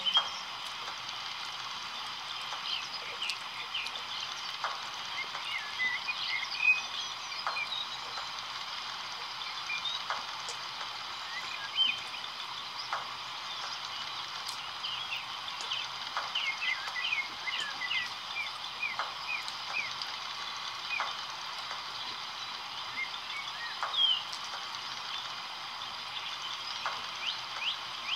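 Background chorus of many short chirping animal calls over a steady high hiss, with a few sharp clicks scattered through it.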